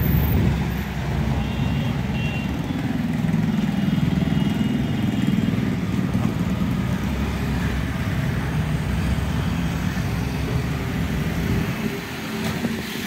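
Street traffic: a steady low engine rumble from passing and idling cars, vans and motorcycles, with faint brief high tones twice in the first half.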